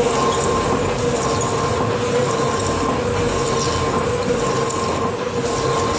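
Assembled shaft-type stone-crushing machine running: a steady metallic whine over a continuous rattling clatter.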